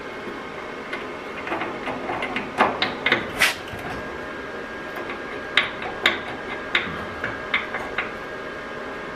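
Metal clicks and knocks from parts being handled and fitted under a car's floor pan: a cluster from about one and a half to three and a half seconds in and another from about five and a half to eight seconds in, over a steady shop hum with a faint high tone.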